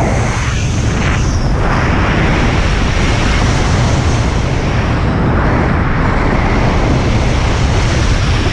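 Heavy wind noise from air rushing past a skydiver's head-mounted camera microphone while falling through cloud: a loud, steady rumbling roar.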